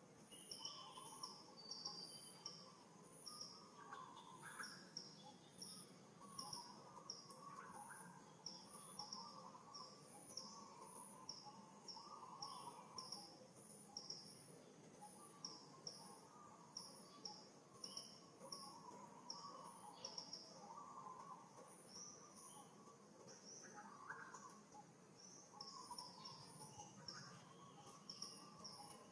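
Faint birdsong: a high, short note repeated about twice a second over softer, irregular chirping lower down.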